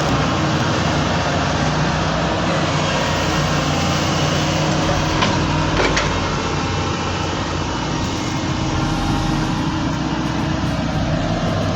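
Excavator's diesel engine running steadily under load, with two sharp cracks about halfway through, about half a second apart.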